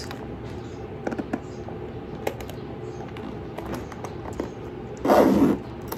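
Light taps and clicks of a leather handbag being handled. About five seconds in, a metal zipper is drawn shut with a short zipping sound: the zipper of a red epi leather Louis Vuitton Alma BB.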